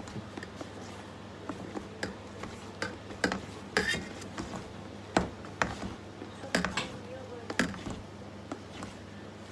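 Silicone spatula scraping and knocking against a stainless steel mixing bowl while folding egg-yolk cake batter and whipped egg whites, heard as irregular clicks and taps, the loudest about five seconds in.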